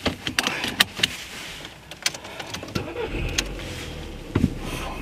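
Car sounds: a run of sharp clicks and knocks, then a car engine running with a low rumble from about three seconds in, with another couple of knocks near the end.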